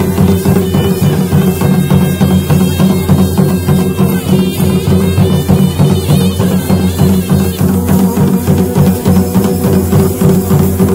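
Traditional folk drumming with a steady droning wind instrument: drums beat fast and evenly under the drone. A higher piping melody plays over it from about half a second in until about seven and a half seconds.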